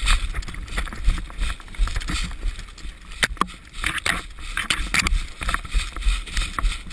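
Running footsteps crunching through snow, with an uneven run of low thuds and twigs and brush rustling and snapping against clothing and gear.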